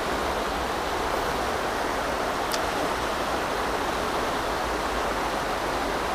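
River rushing steadily over rocks in shallow rapids.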